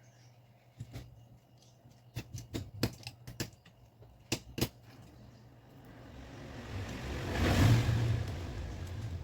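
Sharp clicks and taps of small laptop parts and screws being handled during a fan replacement. Then a rushing vehicle sound swells up over a few seconds, peaks, and eases off as the vehicle passes.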